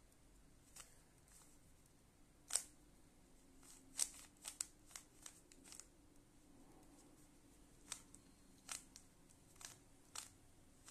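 A plastic Rubik's cube being turned by hand: faint, irregular clicks as its layers are twisted, over a faint steady hum.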